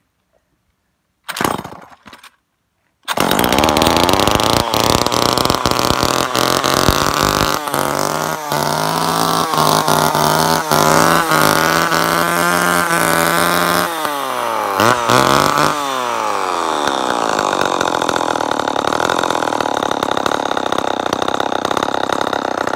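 Old Remington two-stroke chainsaw being cold-started after four or five years unrun: a pull of the starter cord about a second and a half in, then the engine catches about three seconds in. It runs loud with the revs rising and falling unevenly, falls away sharply twice near the middle, then runs steadily.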